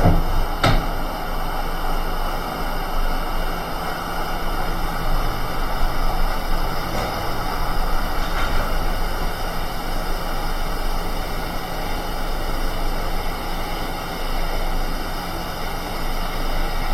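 Hot air rework station blowing a steady hiss of hot air while the touch IC chip on an iPhone 6 Plus board is reflowed, with a short click just after the start.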